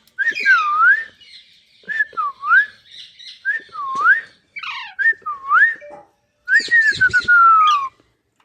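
A run of clear whistles: four short ones that dip down and swing back up, then one long whistle falling steadily in pitch near the end. Fainter chirps and squeaks from a pet rose-ringed parakeet sound over them.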